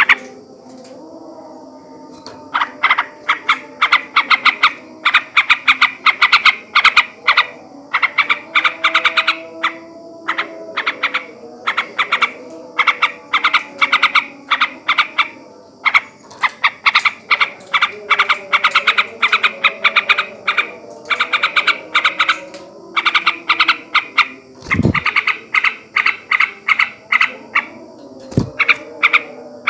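Male yellow-vented bulbul (trucukan) chattering in rapid runs of sharp notes, bursts of a second or two with short pauses between them. Two brief low swooping thumps come near the end.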